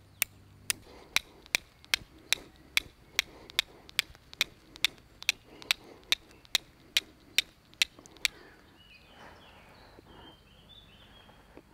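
Flint and steel: a C-shaped steel striker is struck against a flint in a steady run of about twenty sharp clicks, about two and a half a second, which stop about eight seconds in. The striking is meant to catch a spark on a piece of cotton rubbed with ashes, and it takes many strikes.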